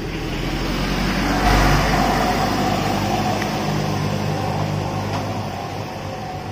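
An engine running with a steady hum, growing louder over the first second and a half and then slowly fading.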